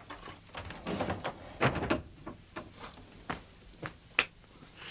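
A string of irregular wooden knocks and clicks from a plank gate being handled. The loudest comes about a second and a half in, and there is a last sharp click near the end.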